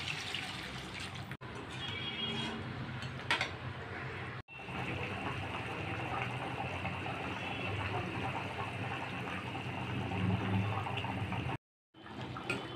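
Water being poured from a jug into chicken curry in a steel kadai, then the thinned curry boiling and bubbling in the pan.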